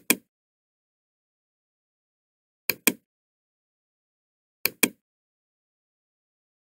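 Computer mouse button clicked three times, each click a quick press-and-release pair of sharp clicks, about two seconds apart.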